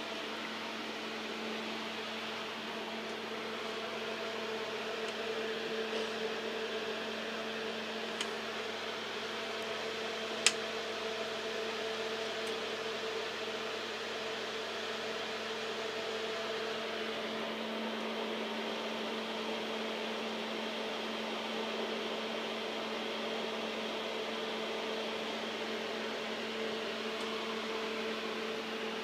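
Steady hum and rushing noise of an argon ion laser setup's cooling equipment running, with two held tones under the noise. A single sharp click about ten seconds in, with a couple of fainter ticks shortly before it.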